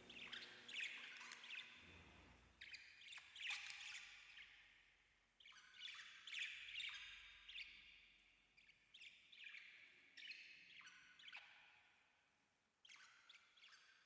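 Indian ringneck parakeet giving soft, quick chirps and chatter in several bursts with short pauses between them, while its head is being scratched.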